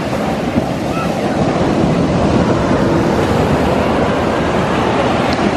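Ocean surf breaking on the beach, a steady, loud wash of noise, with wind blowing on the microphone.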